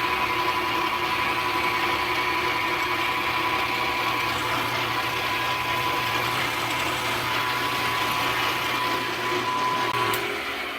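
Metalworking machine tool running steadily through a cutting pass on a steel spindle, a steady motor hum with a high whine. It is switched off and winds down about ten seconds in.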